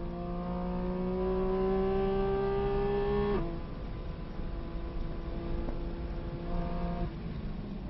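Car engine pulling hard, heard from inside the cabin: its note climbs steadily for about three seconds, then drops suddenly as at a gear change and runs on at a lower, steady pitch.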